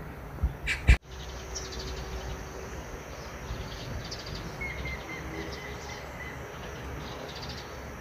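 Birds chirping and insects calling over a steady low rumble, with a loud knock about a second in where the sound briefly cuts out.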